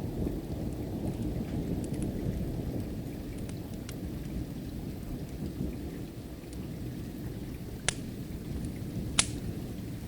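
Fireplace crackling with scattered small snaps and two sharp pops near the end, over steady rain and a low, rolling rumble of distant thunder.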